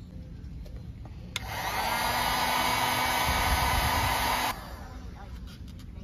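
Electric heat gun switched on with a click about a second and a half in, blowing steadily with a motor whine for about three seconds, then switched off abruptly.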